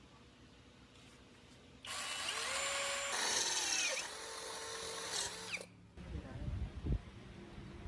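A power tool starts about two seconds in and runs for about four seconds, its whine rising and falling in pitch, then cuts off suddenly. Low knocks follow near the end.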